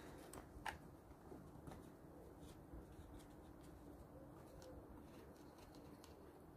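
Near silence: a few faint clicks of small parts being handled during carburettor reassembly, with a faint low cooing in the background.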